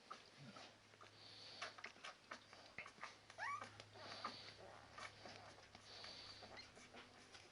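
Faint squeaks and whimpers of ten-day-old Labrador Retriever puppies, with one clearer squeak that rises and falls about three and a half seconds in, among soft scattered clicks.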